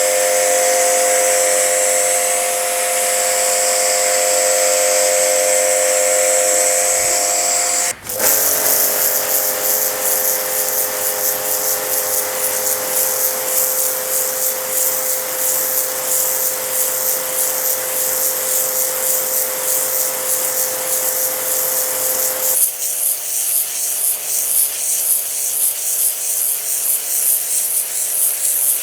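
Electric high-pressure washer running with a steady motor whine under the hiss of its water spray. It cuts out for an instant about eight seconds in, and the spray sound changes near the end.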